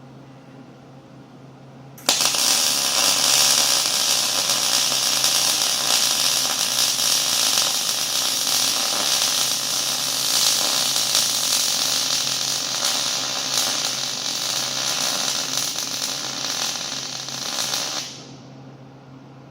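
Stick welding arc: it strikes suddenly about two seconds in, crackles and sizzles steadily for about sixteen seconds, then breaks off. A low steady hum runs underneath throughout.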